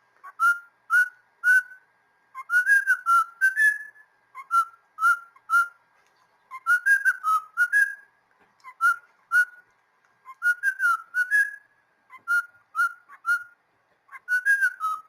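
Cockatiel whistling a short tune over and over. Groups of three short clear notes alternate with longer runs that end on a rising note.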